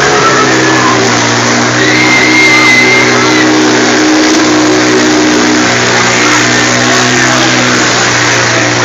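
Loud fairground music over a dense din, with riders screaming on a swinging pirate ship ride: one long high scream about two seconds in, and another starting at the very end.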